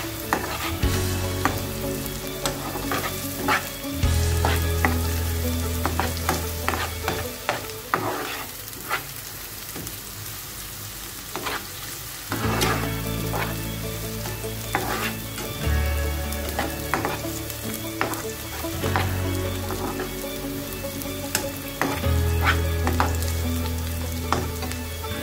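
Chopped onions sizzling as they fry in hot oil in a nonstick pan. A spatula stirs them, scraping and clicking against the pan many times. The onions are being fried golden in the oil left from frying fish.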